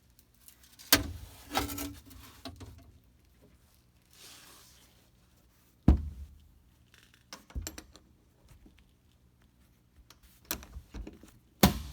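Scattered handling noises: about half a dozen sharp knocks and clunks, with a short rustle in the middle, as a metal seat-back corner panel is handled and loaded into a sandblast cabinet.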